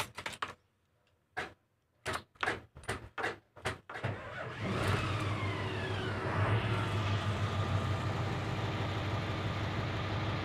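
Eight-wheeler truck engine started from the cab: a few short bursts of cranking and clicks, then it catches about four seconds in, with a whine falling in pitch just after, and settles into a steady idle.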